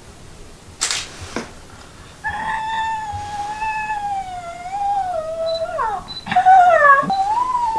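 A long, high-pitched, wavering whimpering whine: a person protesting with a closed-mouth "nnn" at a bitter herbal medicine. It dips sharply in pitch twice near the end, and there is a brief breathy noise about a second in.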